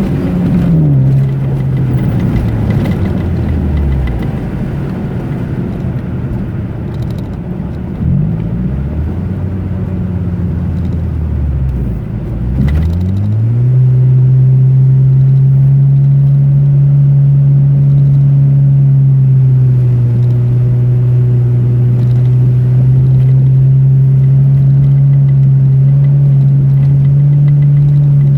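Car engine under way: its pitch falls over the first few seconds, climbs quickly twice as the car accelerates, then holds steady at a higher pitch for the rest.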